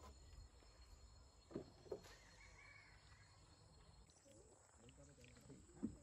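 Near silence on a jungle river: faint quiet background with two soft knocks about a second and a half in, followed by a faint warbling call.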